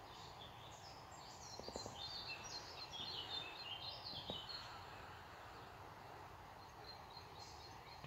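Small songbirds singing in woodland, a quick jumble of high chirps and short trills that is busiest in the first half and returns briefly near the end, over a faint steady hiss.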